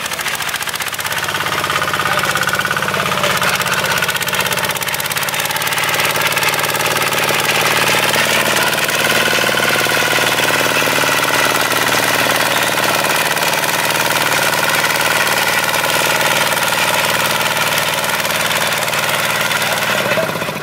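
Sing Tong STT155 small tractor's engine running steadily under load while it pulls a four-disc plough through the soil. It grows louder about a second in and again around six seconds in as the tractor comes closer.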